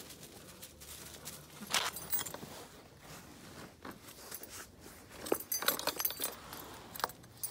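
Car keys jangling and clinking as Labrador puppies mouth and tug at them: a few clinks about two seconds in, then a busier run of jingling from about five seconds on.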